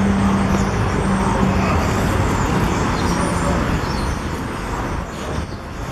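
Steady, loud traffic and street noise, with a low hum that fades out about two seconds in.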